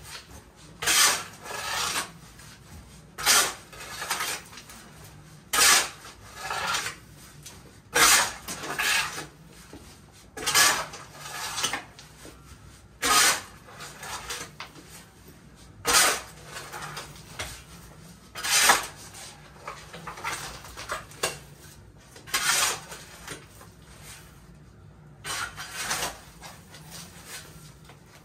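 Steel shovel digging gravelly soil by hand: the blade scrapes and grates into dirt and stones, then a shorter scrape follows as the load is lifted and dumped. This repeats about every two to three seconds, about a dozen strokes.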